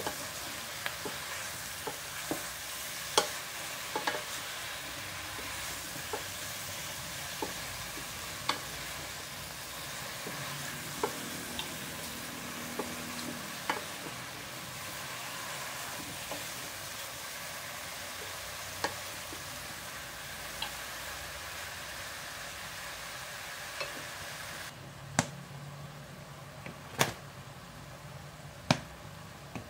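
Halved mushrooms sizzling as they sauté in a stainless steel pot, stirred with a wooden spatula that knocks against the pot now and then in sharp clicks. The sizzling drops off about 25 seconds in, followed by a few louder taps.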